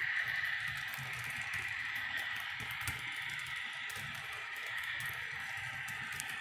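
HO scale intermodal freight cars rolling past on model track, their wheels ticking irregularly over the rail joints over a steady hiss. The clicks thin out near the end as the last car passes.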